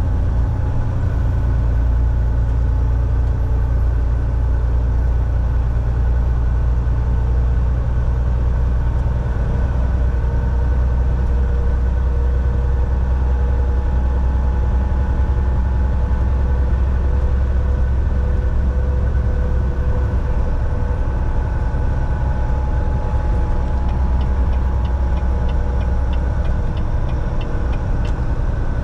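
Volvo semi truck's diesel engine running with a steady low drone, mixed with road noise as the truck drives. A faint run of quick ticks comes in near the end.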